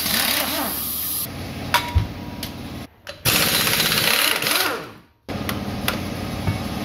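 Impact wrench hammering in three bursts, undoing the clutch pressure plate bolts. Each burst stops abruptly.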